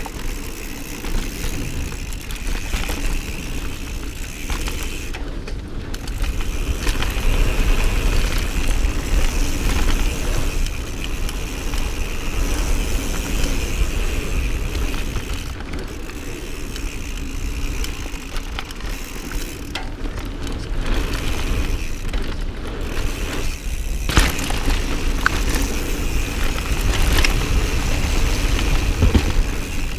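Mountain bike ridden fast down a dirt trail: steady wind rush on the camera microphone with tyre noise and the bike rattling, and a few sharp knocks in the last several seconds.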